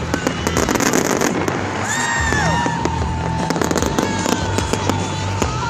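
Fireworks display going off: a dense run of pops and crackling bangs, with whistling glides, over background music playing along with the show.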